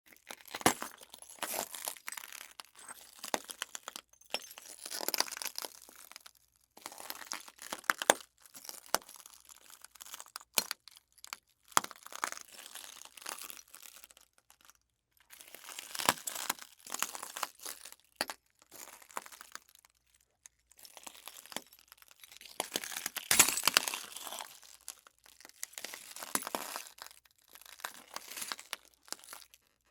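Footsteps in shoes crunching and grinding over broken glass debris. The steps come in uneven runs, broken by a few short pauses.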